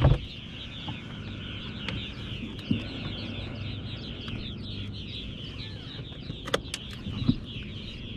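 A steady outdoor chorus of rapid high-pitched chirps, with a few sharp clicks near the end.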